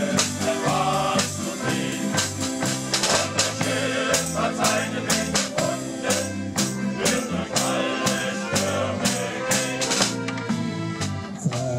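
Shanty choir singing with instrumental accompaniment, over a steady beat of percussion strikes.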